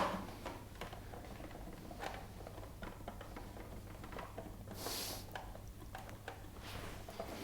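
Faint handling noises of plastic air-conditioner parts being worked loose by hand: scattered light clicks and taps, with one short hissy rustle about five seconds in, over a steady low hum.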